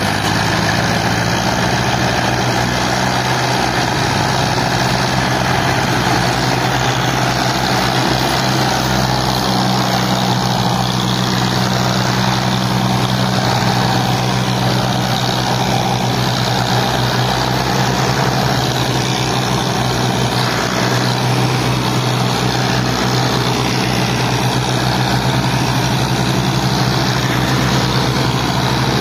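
Massey Ferguson tractors' diesel engines running hard together, pulling a heavily loaded sugarcane trolley. A steady, deep engine drone that holds without a break.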